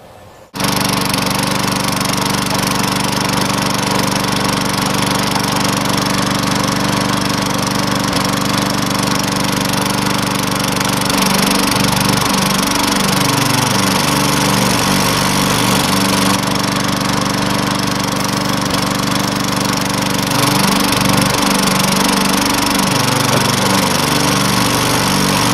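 Lawn mower engine running steadily while cutting grass. Its pitch wavers twice, around the middle and again near the end.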